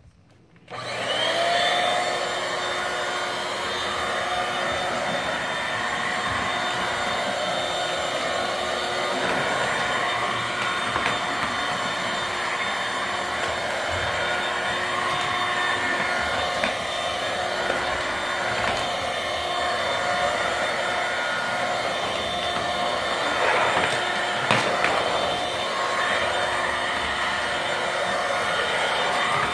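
A corded stick vacuum cleaner is switched on less than a second in, its motor spinning up with a short rising whine, then running steadily with a constant whine. There are a few brief knocks about three-quarters of the way through.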